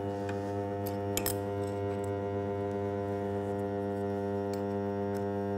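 The switched-on electromagnetic base of a Metabo MAG 50 magnetic core drill humming steadily at mains frequency, with the motor not running. A few light metallic clicks, two close together about a second in, come from the hex key and annular cutter being handled at the drill's arbor.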